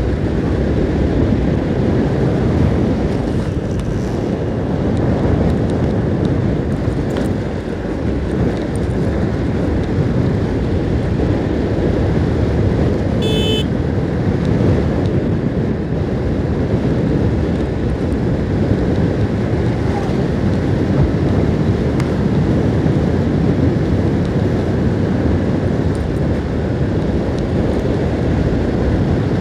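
Wind buffeting the microphone of a motorcycle riding at a steady speed, with the bike's engine and road noise underneath. A short beep about thirteen seconds in.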